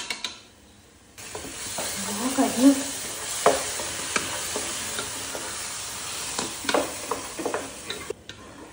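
Carrot halwa sizzling in a pan while a spoon stirs and scrapes through it, with a few sharper scrapes and clacks against the pan. The sizzle starts about a second in and cuts off shortly before the end.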